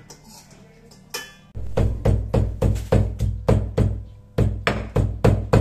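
Background music with a steady percussive beat over a low bass. It comes in about one and a half seconds in, just after a single short click, and drops out briefly near four seconds.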